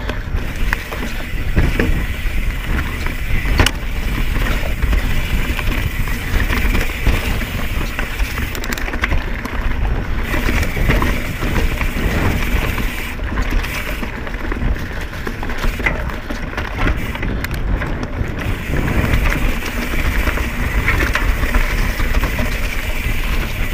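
Mountain bike ridden over rooty, leaf-covered singletrack, heard through an action camera: a steady rumble of wind on the microphone and tyres on the dirt, with rattles and a few sharp knocks as the bike hits roots and rocks.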